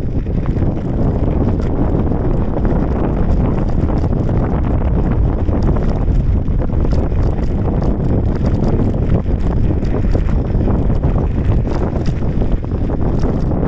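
Heavy wind buffeting the microphone as the vehicle rides along a path. Scattered crackles and light rattles run through it.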